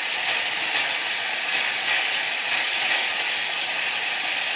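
Water running steadily from a tap, used to wash sticky slime off hands.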